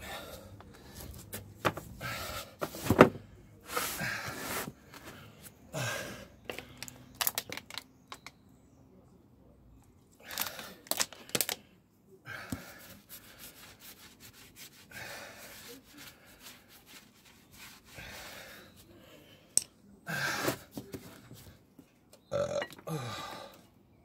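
Hand work on a car tyre and alloy wheel with tyre levers: irregular knocks, scrapes and clatter, the loudest a sharp metal knock about three seconds in. A couple of short burps come through as well.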